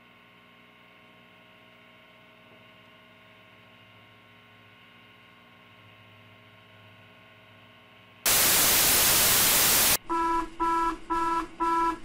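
Faint steady hum, then a sudden burst of loud static lasting about two seconds. It cuts straight into a loud pulsing electronic alert tone, several pitches sounding together, beeping about twice a second: the attention signal of an emergency alert broadcast.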